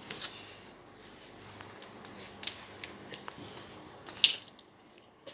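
Scattered clicks and taps from the plastic Pie Face game and its spinner being handled on a tiled floor, the loudest just after the start and about four seconds in.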